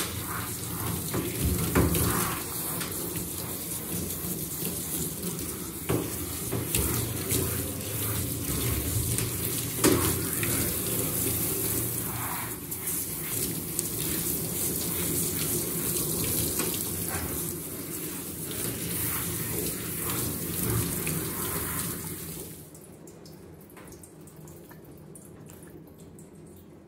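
Handheld shower sprayer running, rinsing shampoo lather off a boxer's coat in a grooming tub: a steady rush of water that stops near the end.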